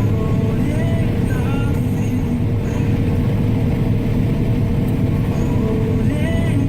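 Combine harvester running while harvesting corn: a loud, steady machine drone with a constant hum.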